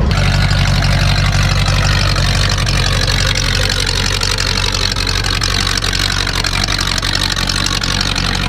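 A monster truck's Ford V8 engine idling steadily, loud and close.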